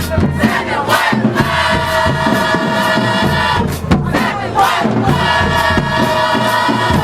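High school marching band playing: brass holding long chords over steady drum hits, with a short break of drum strokes near the middle. Crowd voices are mixed in.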